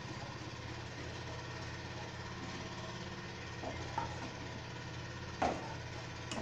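Steel ladle stirring gravy in a stainless steel pan, with a few light clinks of the ladle against the pan, the strongest about five seconds in, over a steady low hum.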